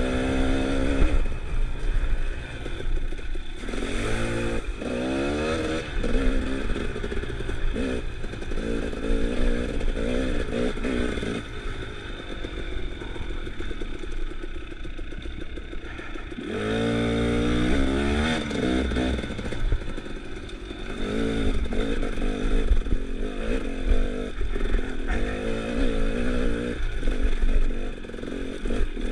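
Dirt bike engine running under load, revving up in repeated rising sweeps and easing off between them. The strongest run-ups come about four seconds in and again at about seventeen seconds.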